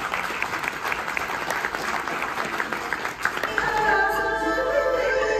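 Audience applauding, then about two-thirds of the way in the music for the water puppet show starts, with several held notes sounding together.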